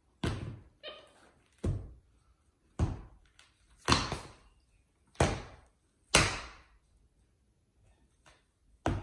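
A capuchin monkey slamming a sneaker down on a hard marble tile floor: about seven loud thuds at irregular intervals, roughly a second apart.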